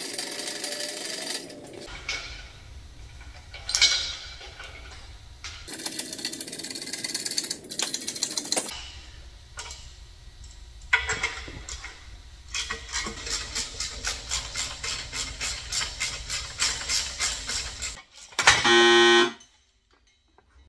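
Hand tools working on an engine stand: irregular metal clatter, then a ratchet worked in steady strokes, about two to three a second, for several seconds. Near the end, a short, loud horn-like tone cuts in, then stops suddenly.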